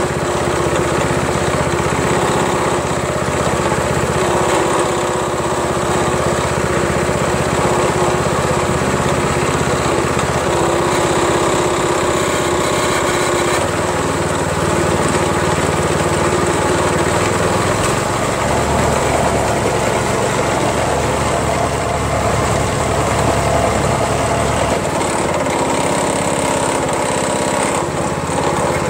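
Brand-new Predator 212cc single-cylinder four-stroke engine running steadily during its break-in period. Its note changes about halfway through and again near the end.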